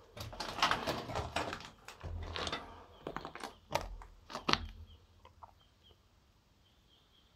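Footsteps crunching on gravel and dirt: a run of irregular crunches for about five seconds that then stops.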